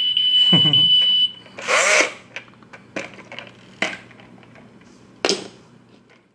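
A toy truck gives off a steady high-pitched whine that stops about a second in. After it come a brief squeal and a few sharp plastic clicks and knocks as the toy is handled.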